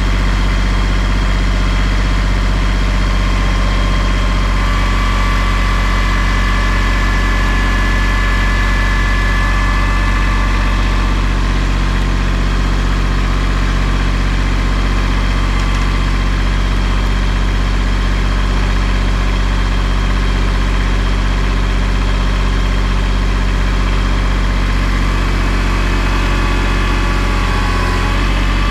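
An engine idling steadily with an even low hum, with some higher tones that come and go partway through.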